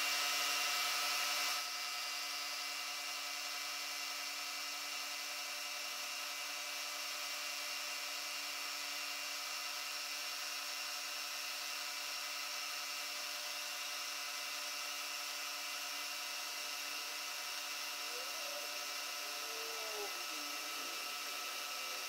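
Milling machine running steadily, its spindle drive giving several constant whining tones over a hiss, slightly louder for the first second or so, while cutting slots in a small cast-iron table casting. A faint wavering tone comes in briefly near the end.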